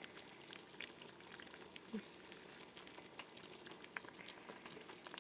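Pot of beef and vegetable soup at a rolling boil: faint bubbling with many small scattered pops.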